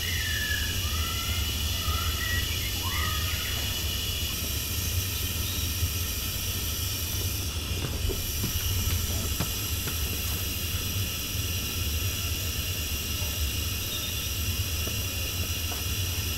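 Propane gas burner firing a drum kiln: a steady low roar with a hiss. Birds chirp a few times in the first few seconds.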